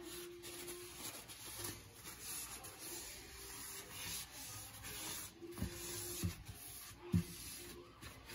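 A cloth rubbing and wiping along the rim of a stainless steel sink in repeated strokes, cleaning it where the old caulk has been stripped off. A few dull knocks come in the second half.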